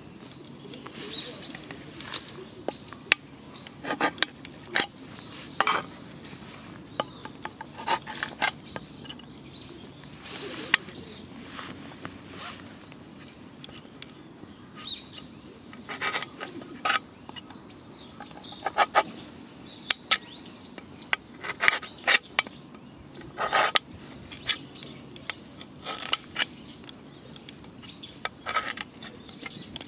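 Irregular clicks, taps and short scrapes of a thin aluminium drink can being handled and worked by hand, with birds chirping.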